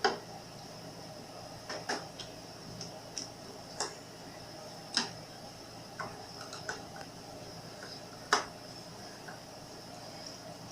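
Irregular light clicks and knocks of hand work on a refrigerator handle, about a dozen of them, with sharper knocks near the start, about five seconds in and about eight seconds in.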